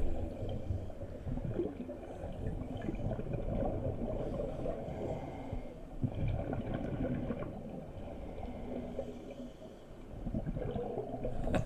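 Muffled underwater gurgling and bubbling from scuba divers, heard through a GoPro's waterproof housing.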